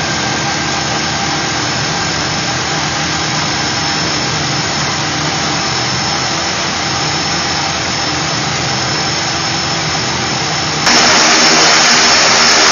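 Pilatus PC-6 Turbo Porter's turboprop engine running steadily, heard from inside the cockpit. Near the end it turns abruptly louder with a strong high whine, heard from outside beside the aircraft with the propeller turning.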